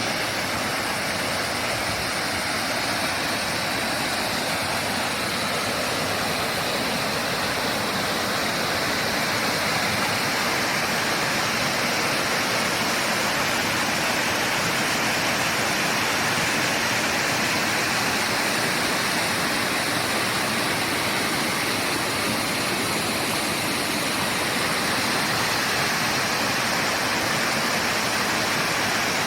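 Mountain stream rushing steadily over rocks, a loud unbroken roar of water.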